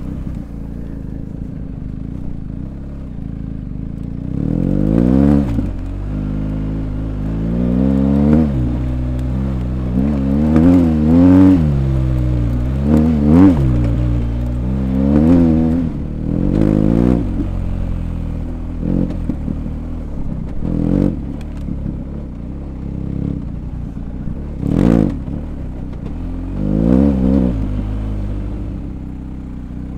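BMW R1250GS Adventure's boxer twin with an Akrapovič exhaust, ridden off-road: the engine revs up and eases off again in about a dozen throttle bursts, loudest in the middle stretch.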